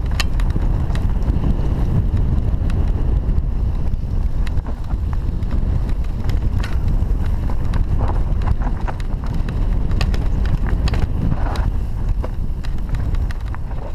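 Wind buffeting an action camera's microphone over the rumble of mountain bike tyres on a dirt singletrack, with frequent short clicks and rattles from the bike over the rough trail.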